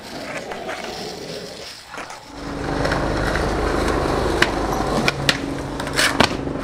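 Skateboard wheels rolling on concrete pavement, with several sharp clacks of the board in the second half as it pops and hits a ledge.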